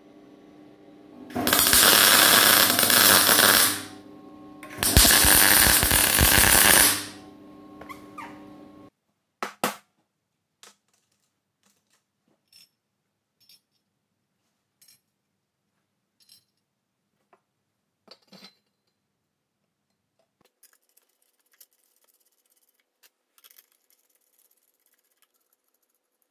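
Two bursts of electric welding on steel, each about two seconds long, over the steady hum of the welder. Then, after a drop to near quiet, scattered light clicks of small steel screws, nuts and washers being handled and fitted.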